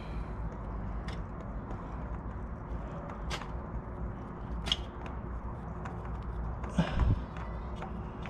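Light clicks and taps of handling as a spin-on oil filter is turned off by hand on a 2020 Suzuki SV650 over crumpled aluminium foil. A louder burst of handling noise comes about seven seconds in, over a steady low rumble.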